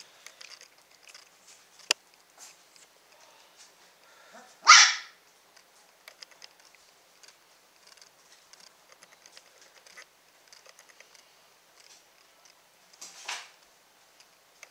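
Saint Bernard puppies: one puppy gives a short, sharp bark about five seconds in and a fainter one near the end. Between them come light scattered clicks and scratches of little paws and claws in the whelping box.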